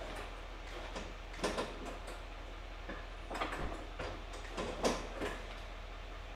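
Intermittent clanks and clatters from hand work on a steel fifth-wheel hitch in a pickup bed. A handful of short knocks stand out over a steady shop hum.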